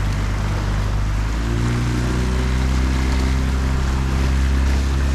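Small outboard motor pushing an inflatable kayak, running steadily and stepping up in speed about a second and a half in.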